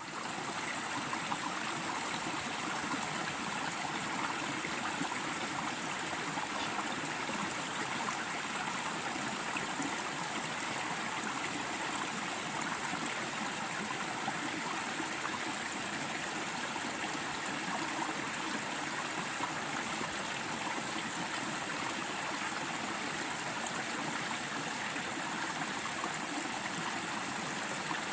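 Mountain stream flowing steadily, an even rush of water with no change.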